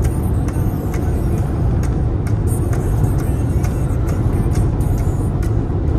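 Steady road noise inside a car cabin at highway cruising speed: a low rumble of tyres and engine with no change in speed, and small sharp clicks now and then.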